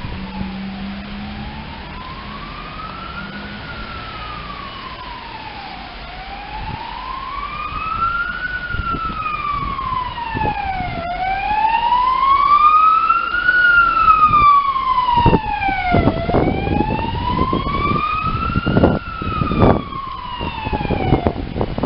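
Emergency vehicle siren on a slow wail, rising and falling about every five seconds and growing louder as the vehicle approaches. Rough thumps join it in the last few seconds.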